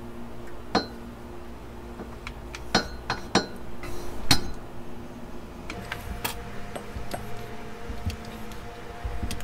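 Sharp metallic clicks and clinks, about five in the first half, from a LockNLube LNL151 lever grease gun being worked on a suspension bushing's grease zerk: the coupler locking on and the lever being pumped. A faint steady hum runs underneath.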